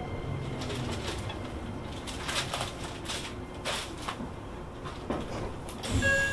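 Cabin of a Shin-Keisei N800-series commuter train standing at a station: steady air-conditioning noise with a few short hisses and knocks, then about six seconds in the door chime begins with a clear ringing tone.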